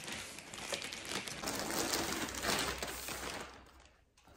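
Clear plastic packaging bag crinkling and rustling as a jacket is pulled out of it, dying away near the end.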